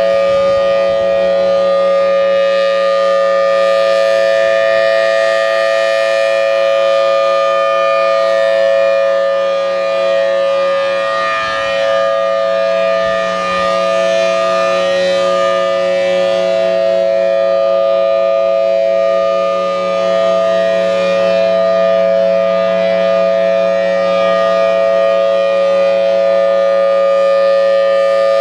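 Federal Signal Thunderbolt 1003 dual-tone rotating siren, driven by its 4M blower, sounding a steady full-alert tone: two loud pitches held together a minor third apart. Its level dips slightly twice as the rotating horn turns away.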